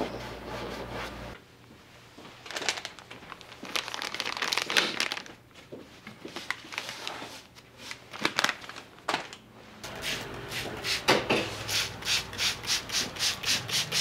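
A wet tissue is rubbed lightly over textured watercolour paper, in quick back-and-forth strokes about three a second from about ten seconds in. Before that there is irregular rustling and scraping of paper being handled.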